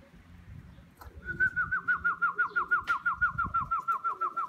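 A loud, rapid whistled trill starting about a second in: a string of short falling notes, about seven a second, holding a steady pitch that sinks only slightly.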